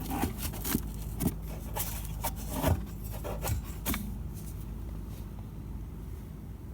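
Refrigerator condenser fan running with a steady low hum while the compressor stays off, the fridge's fault. Several short rubbing and scraping knocks from hands on the back panel and tubing fall in the first four seconds.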